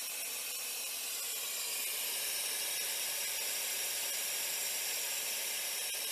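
Compressed air hissing steadily out of a Benjamin Bulldog .357 PCP air rifle through a loosened Allen screw by the fill port, draining the gun's air reservoir. The hiss cuts off suddenly at the very end.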